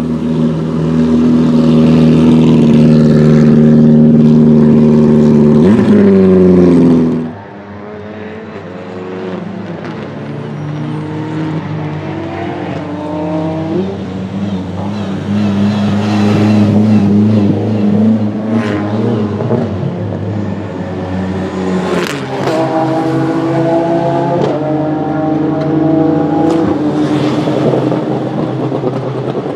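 Turbocharged four-cylinder time-attack race car at full throttle, passing close by with its engine note dropping sharply in pitch about six seconds in, then accelerating away through its sequential gearbox, the engine note rising in steps with each gear. A few sharp pops come in the second half.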